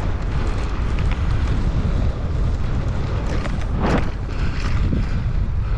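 Wind buffeting the microphone in a steady low rumble, with a short rushing noise about four seconds in.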